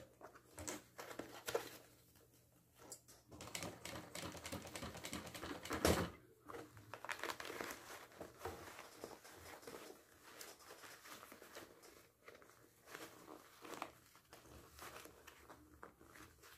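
Bag fabric being pulled, folded and shifted by hand under a sewing machine's presser foot: irregular rustles with a few soft knocks, the loudest about six seconds in.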